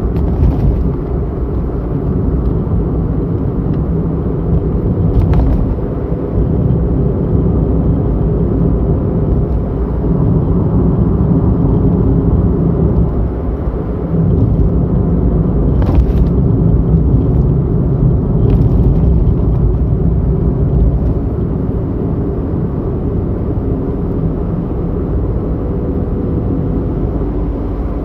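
Car cabin road noise: a steady low rumble from tyres and engine while driving, with a faint steady whine and four brief knocks as the wheels go over cracked, patched pavement.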